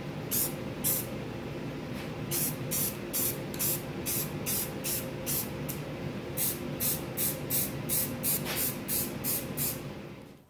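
Aerosol spray paint can sprayed in quick short bursts, about three a second, with short pauses about one and six seconds in; the spraying stops just before the end.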